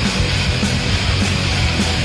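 Heavy noise-rock music played loud: distorted electric guitars over drums, with a steady driving beat.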